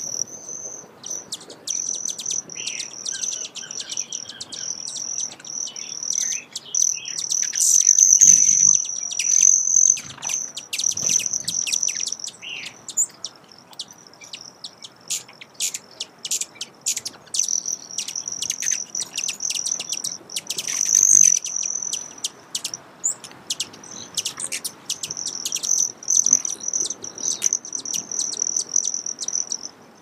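Broad-tailed hummingbird: a high, shrill, steady trill of the male's wings, fading in and out with short breaks, with many quick sharp chip notes over it.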